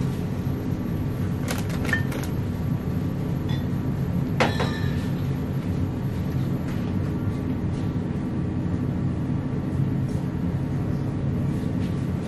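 Glass wine bottles clinking against each other a few times, about one and a half to two seconds in and most sharply about four and a half seconds in, each clink ringing briefly. Under them is a steady low hum.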